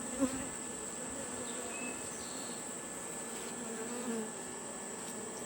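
Honeybees buzzing in numbers around an opened feral colony: a steady drone of several wavering pitches. A brief knock sounds shortly after the start.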